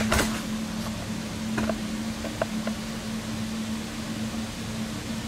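Pipe organ blower running, a steady hum with a held low tone and a rush of air. A few faint light clicks sound partway through.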